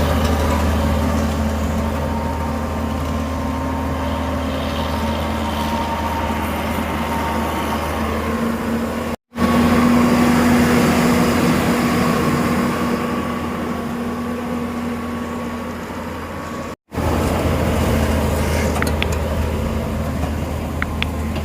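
Heavy road-paving machinery with its engine running steadily, a low continuous drone with a constant hum. The sound cuts out abruptly twice and comes back slightly changed each time.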